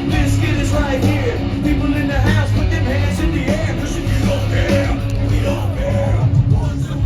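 Live nu-metal band playing loud and steady through a concert PA, with a heavy low end and voices yelling over the music.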